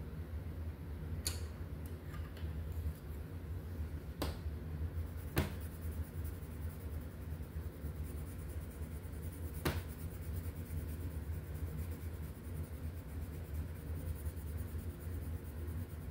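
Colored pencil scratching on coloring-book paper in fast, short, faint strokes, beginning about five seconds in. A few sharp taps come in the first ten seconds, over a steady low hum.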